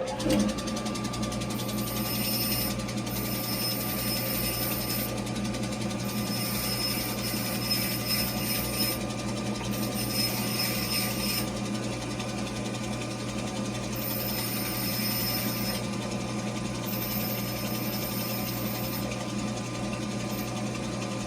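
Electric grinder running steadily while a steel tap is ground shorter, with a high hiss that comes and goes every few seconds as the tap is pressed to the wheel.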